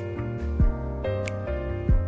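Background music: a soft instrumental track with sustained chords and a low kick drum thumping about every second and a quarter.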